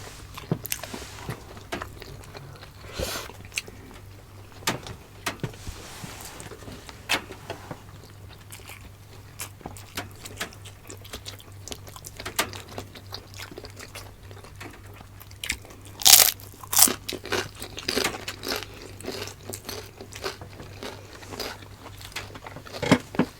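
Close-miked eating: chewing and biting food, with scattered crunches and small clicks over a steady low hum. The loudest crunches come twice about two-thirds of the way through.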